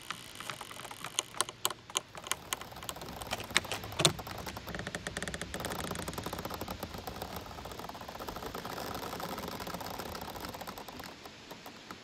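Giant bamboo culms creaking and rubbing against each other as they sway in the wind: irregular woody clicks and knocks at first, the loudest about four seconds in, then a long stuttering creak of rapid ticks from about five seconds in until just before the end.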